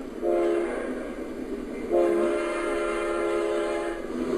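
Train horn: a short blast near the start, then a long steady blast from about two seconds in.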